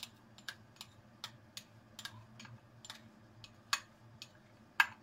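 Chopped red onion just tipped into hot oil in a frying pan, crackling with irregular sharp pops a few times a second, two louder pops near the end. A faint steady low hum runs underneath.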